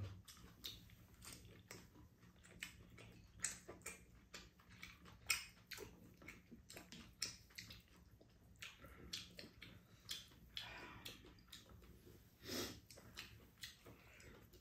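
Quiet close-up eating sounds: chewing of spicy rice cakes, with scattered small clicks of chopsticks and a spoon against bowls, over a faint steady low hum.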